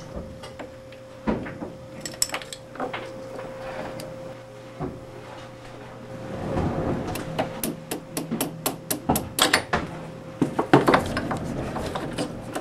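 Hammer taps on the spindle of an Atlas 618 lathe, driving it out of the headstock. A few scattered knocks come first, then a quick run of light taps, about three a second, from about halfway through. A faint steady hum runs underneath.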